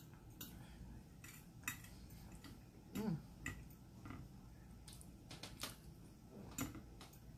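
Metal fork clicking and scraping against a ceramic plate at irregular moments while eating, with a short hummed voice sound about three seconds in.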